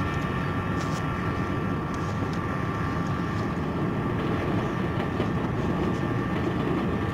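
A steady engine-like rumble with a constant faint whine, and a few light clicks.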